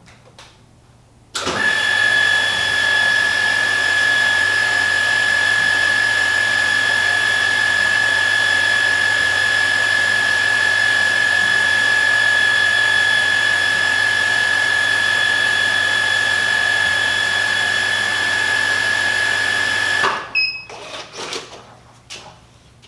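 Sprinkler alarm sounding during an alarm valve test: a loud, steady, high ringing tone that starts suddenly about a second and a half in and cuts off abruptly about three seconds before the end. It is the test signal raised when the alarm valve clack lifts and water reaches the pressure switch.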